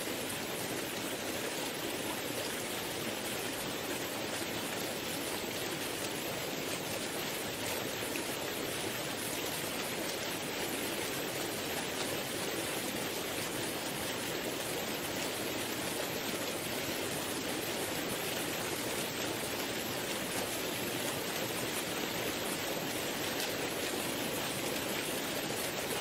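Waterfall: a steady, unbroken rush of falling water, an even hiss with no distinct splashes or changes.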